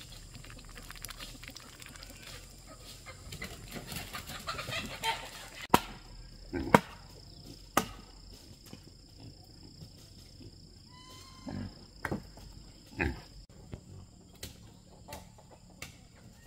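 Chickens clucking, with several sharp knocks; the loudest knocks come about six and seven seconds in.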